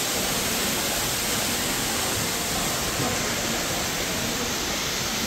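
Steady rush of water from splash-pad fountains, spouts and water jets, an even hiss with no breaks.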